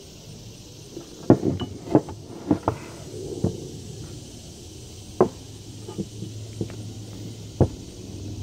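Steel adapter cups and parts of a C-frame ball joint press clinking and knocking as they are handled and set in place against the steering knuckle. A quick cluster of sharp clinks comes between about one and three and a half seconds in, then single knocks spaced a second or so apart.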